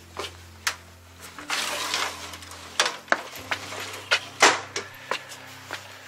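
Footsteps on a hard floor of someone walking through a house: irregular knocks and scuffs, with a brief scraping rustle about one and a half seconds in and the loudest knock about four and a half seconds in.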